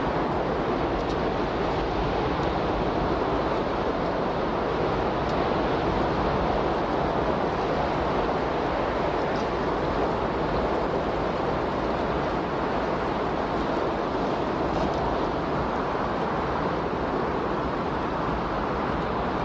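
Steady, even rushing noise with no rise and fall, like constant surf or pink noise: the masking bed of a subliminal audio track.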